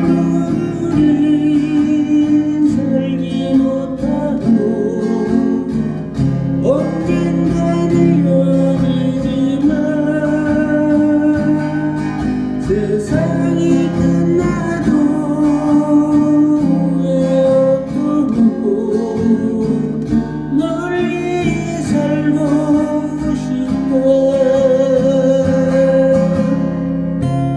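Acoustic guitar strummed as a Korean ballad cover, with a long held melody line over the chords.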